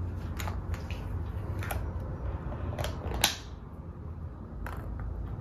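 A handful of light clicks and taps as plastic surprise Easter eggs are handled and opened by hand, the sharpest about three seconds in, over a steady low room hum.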